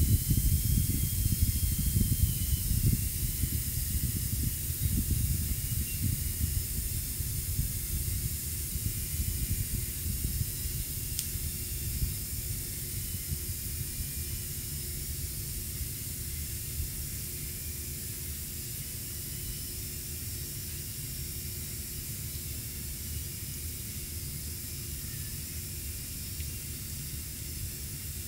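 Air hissing out through a small puncture in a vinyl inflatable crocodile as it deflates. A low rushing under the hiss is strongest at first and fades over the first dozen seconds as the pressure drops, leaving a steady, quieter hiss.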